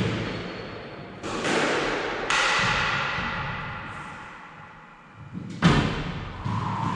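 Squash ball being hit and striking the court walls: four sharp cracks at uneven intervals, each ringing out in the echoing court.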